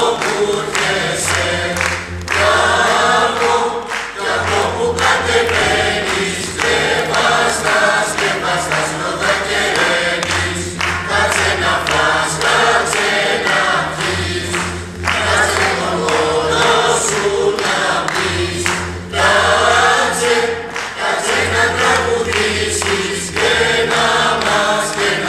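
Mixed choir of men, women and children singing a Christmas carol, phrase after phrase with brief pauses between them.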